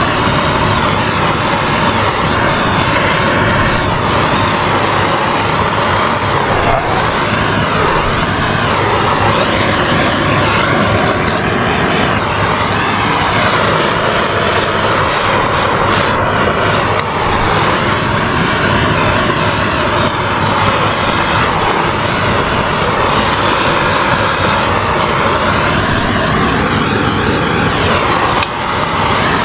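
A handheld gas torch burning steadily, its flame making a continuous rushing noise as it shrinks thick, glue-lined heat-shrink tubing over a wire splice. The noise dips briefly near the end.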